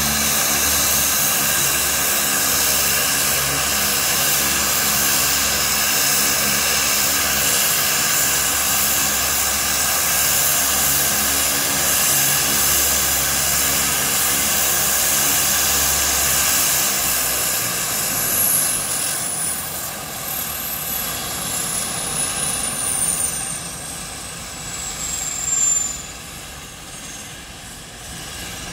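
CASA C-212 Aviocar's twin Garrett TPE331 turboprop engines running steadily at ground idle, propeller drone and turbine whine together, then shut down a little past halfway through: the sound falls away and a high whine glides down in pitch as the turbines spool down.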